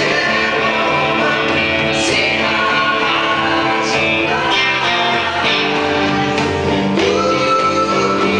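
A 1965 Fender Stratocaster electric guitar played plugged in through an amplifier, with sustained notes and one rising in pitch about seven seconds in.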